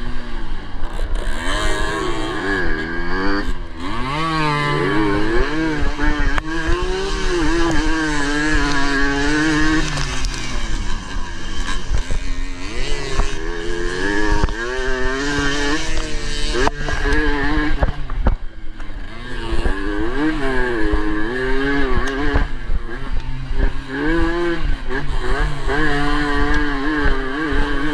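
Suzuki AX100's two-stroke single-cylinder engine racing, its pitch rising and falling over and over as the rider opens and closes the throttle and changes gear, with short drops off the throttle.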